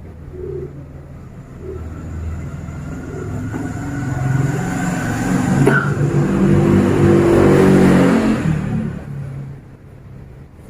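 A motor vehicle's engine passing by, growing louder to a peak about seven seconds in and then fading away.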